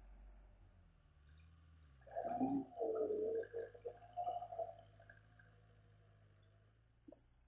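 HMT 5911 tractor's four-cylinder diesel engine running while its front dozer blade pushes soil and banana stalks, with a steady low hum. A louder, uneven stretch of engine sound comes from about two to five seconds in.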